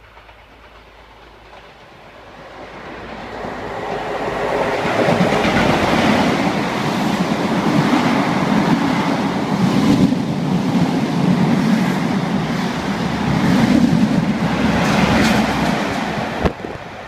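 A passenger train running non-stop through a station at speed. The rush builds over the first few seconds as it approaches, then the coaches pass with a loud, steady rumble and rail clatter. It cuts off suddenly near the end.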